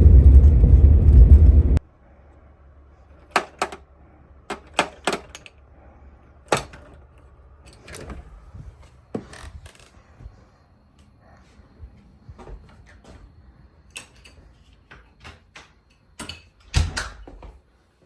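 Vehicle road rumble that cuts off abruptly about two seconds in, followed by scattered sharp clicks and knocks, like handling gear or a door, in a quiet space.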